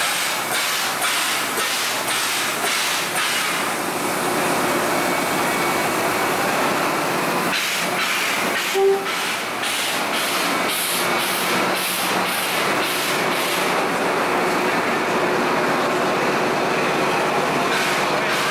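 NSW C36-class steam locomotive 3642 hissing steam steadily, with a rhythmic puffing at about two beats a second near the start and again in the middle. A brief tone sounds about nine seconds in.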